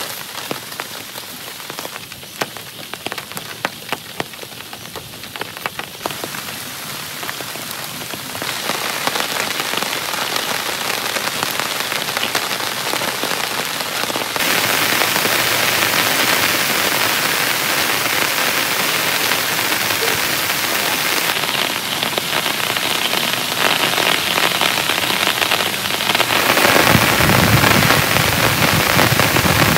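Heavy rain. Individual drops strike sharply and separately at first, then the rain thickens into a dense, steady downpour that grows louder in sudden steps and is heaviest near the end.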